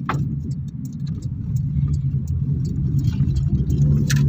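Car cabin noise while driving: a steady low engine and road rumble, with a sharp click right at the start and another near the end.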